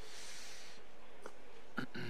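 A person's breath near the microphone, a short soft hiss lasting under a second, with a faint click about a second later, over steady background hiss.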